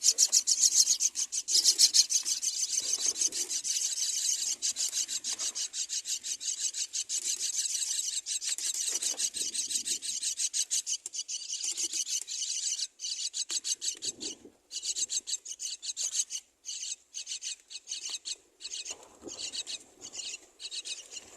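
Common myna nestlings begging: a rapid run of harsh, raspy calls, continuous at first and then coming in shorter bouts after about halfway.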